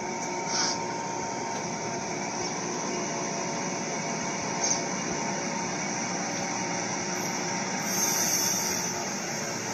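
LEGO train running on plastic LEGO track: a steady whirr from its small electric motor and plastic wheels rolling on the rails, with a few short higher-pitched rattles, about half a second in, near the middle and near the end.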